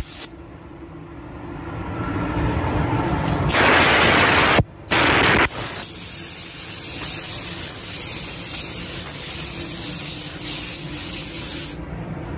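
Paint spray gun spraying 2K plastic primer: loud bursts of hissing air about three and a half seconds in and again briefly at about five seconds, over a steady, quieter hiss.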